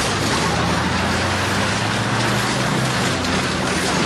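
Steady mechanical running noise with a low hum, like a motor or engine running.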